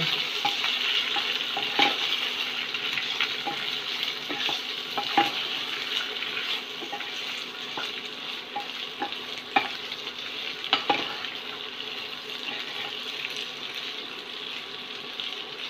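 Steamed rice muthiya pieces sizzling in hot oil tempered with mustard, cumin and sesame seeds in a kadhai while a spatula tosses them, with scattered clicks of the spatula against the pan. The sizzle fades slowly.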